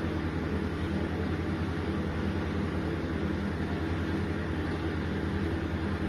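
A steady low droning hum with a faint hiss, even throughout.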